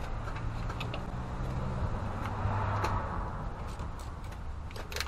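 Scattered light clicks and taps of tools and bolts being handled on a diesel engine's valve cover, a sharper cluster near the end, over a steady low rumble.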